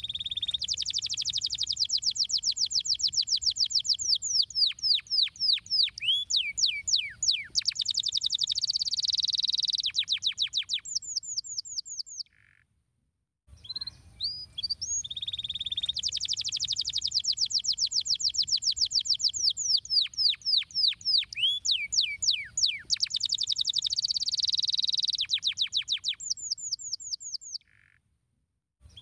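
Domestic canary singing a long rolling song of fast trills, each made of rapid high downward-sweeping notes. The same phrase comes twice, broken by a short silence in the middle and another near the end.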